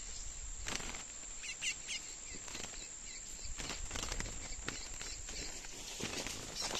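Curió (chestnut-bellied seed finch) giving a few short looping chirps, about a second and a half in and again near the end, among scattered rustles and knocks, with a steady high insect buzz behind.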